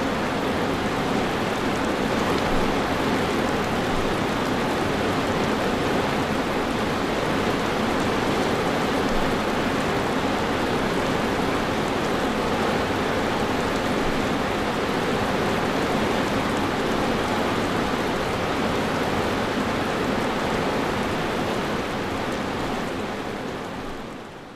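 Steady rain, an even hiss of falling drops, fading out near the end.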